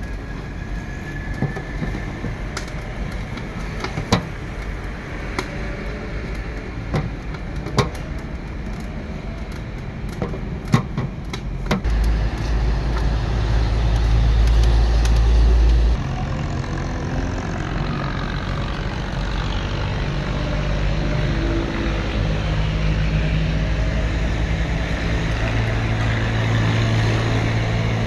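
Roadside traffic noise with a steady low engine hum. Sharp clicks or slaps come every second or so during the first half, and a heavier low rumble lasts a few seconds around the middle.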